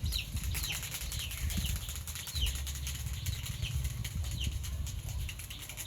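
A small animal gives repeated short, high-pitched chirps that fall in pitch, about two a second, over a low rumble.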